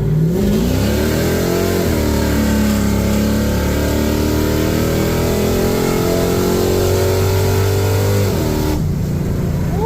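1967 El Camino's small-block Chevy V8 revving up over about two seconds, holding high revs steadily, then falling back toward idle near the end. It runs evenly, hitting on all cylinders after the ignition rebuild and valve adjustment cured its misfire.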